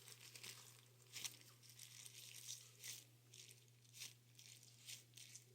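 Faint crinkling of plastic-bagged homemade squishies being handled, a few soft crackles spread over a low steady hum.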